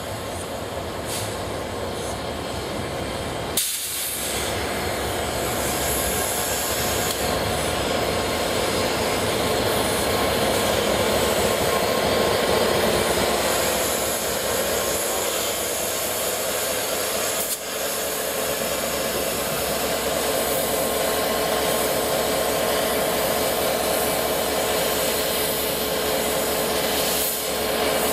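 Slow-moving train of a Class 67 diesel locomotive and the A1 Pacific steam locomotive 60163 Tornado: the diesel's engine runs with a steady hiss of steam, a low steady hum and a single short knock about four seconds in. The noise grows louder over the first dozen seconds and then holds steady as the train comes almost to a stand.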